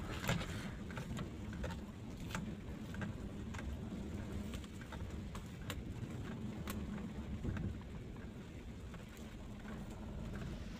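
Car driving slowly on a dirt forest track, heard from inside the cabin: a steady low rumble of engine and tyres, with scattered small crackles and ticks as the tyres roll over fallen leaves and twigs.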